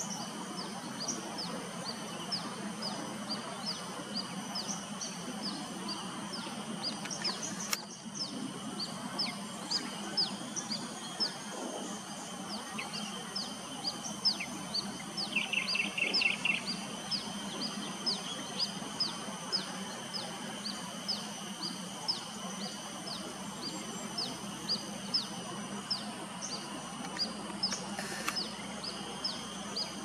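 Birdsong: a bird repeating short, high, falling chirps about twice a second, with a brief fast trill about halfway through, over a steady background drone.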